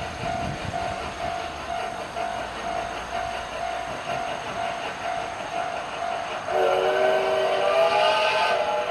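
Japanese level-crossing warning bell ringing in a steady ding-ding at about two strikes a second. About two-thirds of the way in, a train horn joins it as a chord of several notes. The horn is the loudest sound and stops near the end while the bell keeps going.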